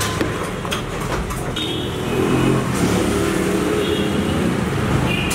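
Road traffic: a steady low rumble with an engine note that grows louder about two seconds in, and a few brief high tones over it.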